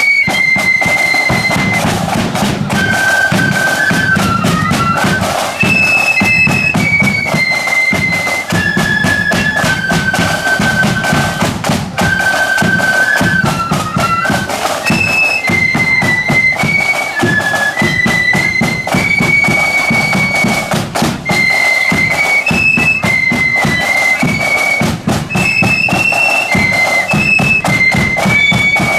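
A marching flute band playing a tune together, the flutes carrying a high stepping melody over steady snare and bass drumming.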